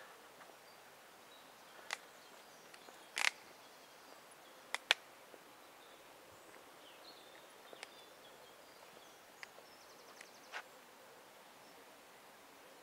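Quiet outdoor ambience broken by a handful of sharp, irregular clicks and taps: the loudest a little over three seconds in, then a close pair near five seconds. A few faint high chirps sit in the background.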